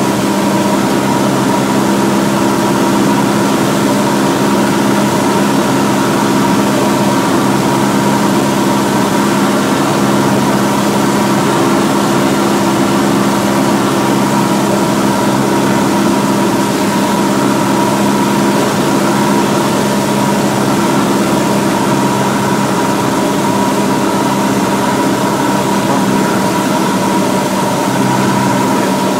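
Cessna 172's 180-horsepower piston engine and propeller running steadily, heard from inside the cockpit as a constant drone with no change in power.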